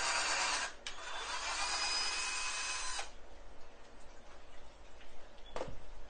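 Cordless drill running into a pine 2x4 frame joint, with a brief break just under a second in, then stopping sharply about three seconds in. A single knock comes near the end.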